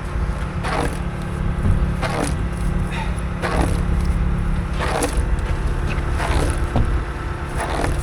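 A vehicle engine idling steadily, with a series of short scraping strokes about once a second as something is wiped or brushed clean.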